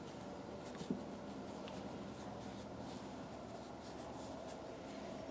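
A cloth rubbing polish onto the green plastic handle of an S&K screwdriver: a faint, steady scrubbing with a light tap about a second in.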